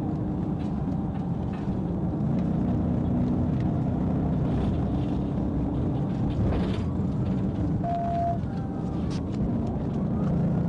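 Police patrol car driving at highway speed, around 60–70 mph: steady engine and road noise heard from inside the car.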